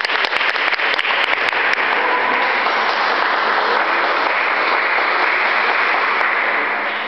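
Audience applause: a dense, steady clapping that fades near the end.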